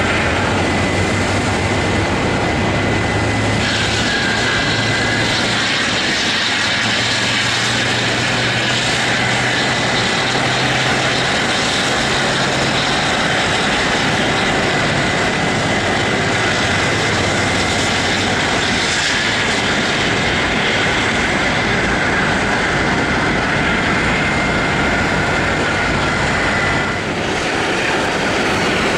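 Rolls-Royce Trent 700 turbofans of an Airbus A330-200 running at taxi power as the airliner taxis close by: a steady jet rumble with a high, steady fan whine that stops near the end.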